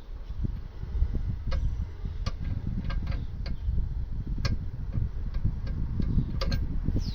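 A 19mm spanner twisting the stuck bottom pin of a Subaru Forester brake caliper back and forth. It gives about ten short, irregular metal clicks over a low rumble. The pin is sticking, the cause of the brake pads wearing unevenly.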